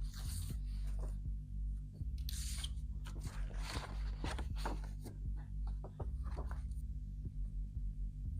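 A throbbing low bass pattern that repeats about every two seconds, under irregular short scraping and rustling of hands working wood pieces.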